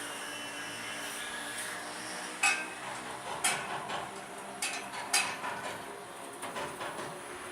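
A series of sharp metal-on-metal knocks and clanks on a combine's grain tank, starting about two and a half seconds in, the loudest four within about three seconds. They come as the stuck tank is worked open. An engine hums steadily underneath.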